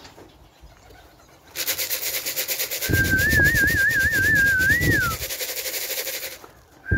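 A man's warbling whistle calling pigeons in to the loft, set over a fast, steady rattle of feed shaken in a tin. The rattle starts about a second and a half in and stops near the end. The whistle trills for about two seconds, then rises and falls. A second short whistle comes right at the end.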